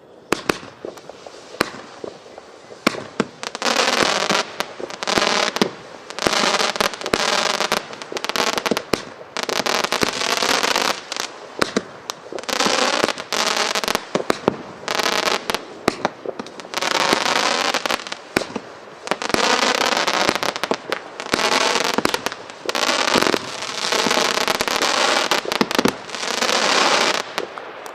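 A 25-shot firework cake firing shot after shot. Each launch is a sharp pop, followed by about a second of dense crackling from the chrysanthemum crackle bursts, repeating throughout.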